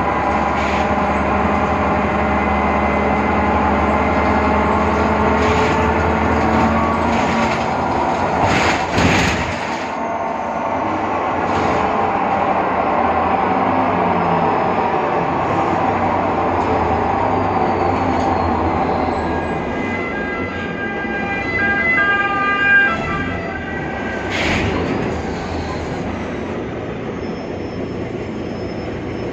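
Interior of a BredaMenariniBus Avancity Plus city bus on the move, its Deutz diesel and ZF Ecomat automatic running, with a strange whine from the rear axle differential over the drive noise, the sign of a faulty differential. A few knocks about nine seconds in and again past twenty seconds, when the whine turns higher and patchier.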